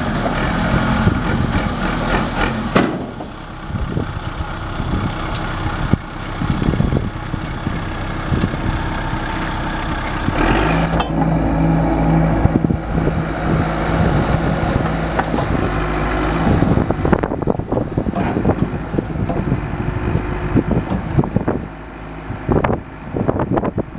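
1996 John Deere 310D backhoe's turbo diesel engine running, working harder and louder from about ten seconds in for some six seconds, with scattered knocks throughout.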